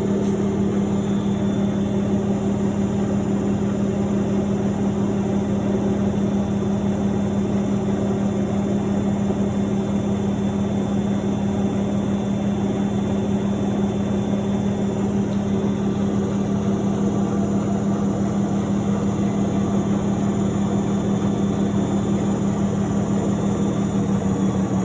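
Miele W1113 front-loading washing machine running with a steady low hum and a fast, even pulsing.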